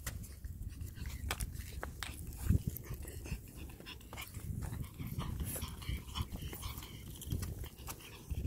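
Sounds of a leash walk with two pug puppies on a concrete sidewalk: scattered light clicks and taps from flip-flop steps, small paws and leash hardware, over a low, uneven rumble of the handheld phone moving.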